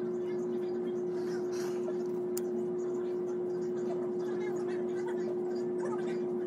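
Bathroom exhaust fan running with a steady hum and one constant tone, with faint soft rustles and ticks of fingers twisting hair.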